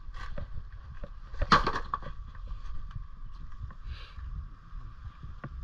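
Dry pandanus leaves and kindling being snapped and torn apart by hand to start a fire, with scattered crackles and one sharper crack about a second and a half in.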